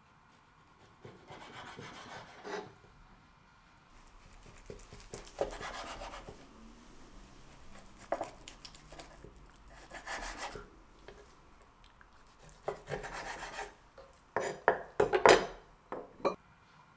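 Chef's knife sawing through raw beef on a wooden cutting board: several rasping slicing strokes, the blade scraping the board. Near the end come a few sharp knocks on the board.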